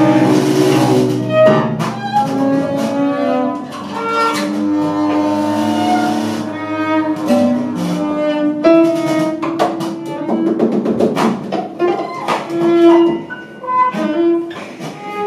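Live ensemble music from bowed cello and double bass with trombone, prepared piano and prepared snare drum. Overlapping held bowed tones run among scattered sharp clicks and taps.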